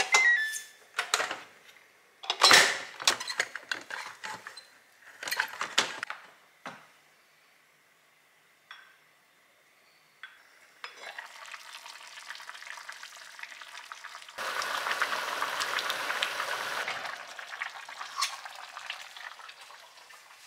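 Cuckoo electric pressure rice cooker being opened: a short falling chime, then sharp clicks and knocks of the lid and a rice paddle against the inner pot as rice is scooped into a bowl. About halfway through comes a steady hiss, louder for a couple of seconds in the middle.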